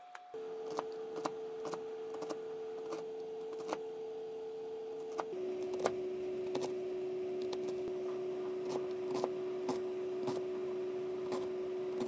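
Kitchen knife chopping an onion on a plastic cutting board: irregular sharp taps of the blade striking the board, roughly one or two a second. A steady held tone runs underneath and steps down in pitch about five seconds in.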